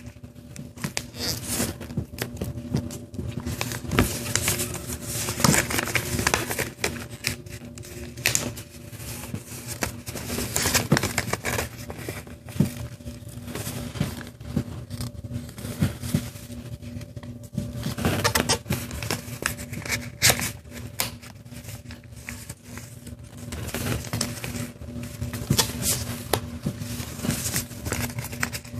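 A sheet of paper being folded by hand: irregular rustling and crisp crackles as the paper is handled, with edges folded to the centre and the creases pressed flat. A faint steady hum runs underneath.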